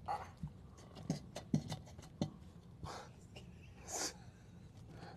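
Epoxy hardener glugging out of an upended plastic gallon jug into a plastic measuring bucket: a string of soft, irregular glugs about every half second, with a short breathy hiss about four seconds in.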